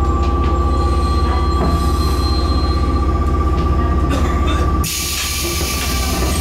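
Stationary train car's on-board equipment humming steadily, with a constant high whine. About five seconds in, the low hum cuts out and a loud hiss of compressed air starts as the car's pneumatic side door is worked.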